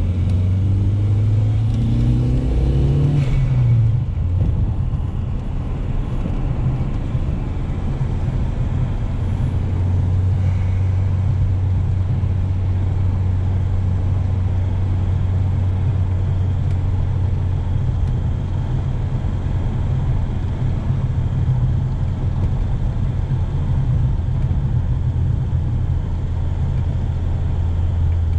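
Volvo 240's turbocharged 2.3-litre B230FK four-cylinder heard from inside the cabin. The revs climb under acceleration for about three seconds, then fall back, and the engine settles into a steady cruising drone with tyre and road noise.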